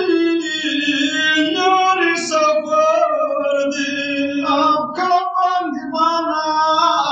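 A man's voice singing a Pashto noha (Shia mourning lament), unaccompanied, in long drawn-out notes that step between pitches, with a brief pause for breath about five seconds in.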